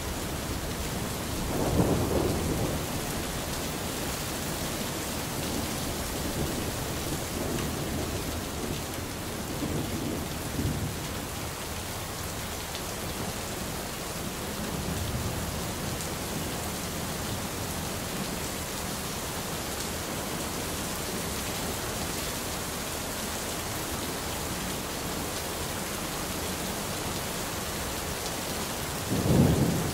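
Thunderstorm: steady rain with rolling thunder. A loud rumble comes about two seconds in, softer rumbles follow in the middle, and another loud rumble comes right at the end.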